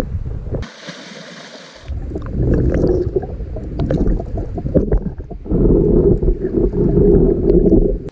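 Heavy wind buffeting the microphone with water noise. About a second in it breaks briefly into a thin, even hiss, then the rumble returns, loudest in the last few seconds.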